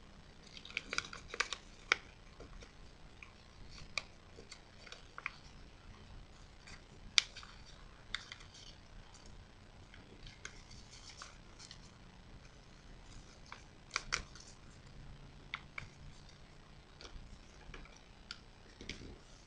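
A sheet of origami paper being folded and creased by hand: irregular soft rustles and crinkles with scattered dry clicks, and a few sharper crackles as folds are pressed flat.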